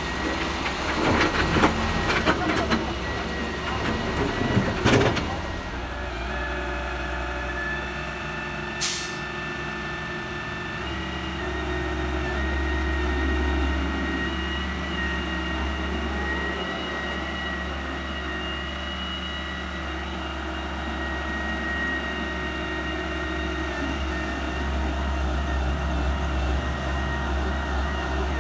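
Heavy diesel machinery running steadily, with a run of clattering knocks in the first five seconds and a short hiss about nine seconds in.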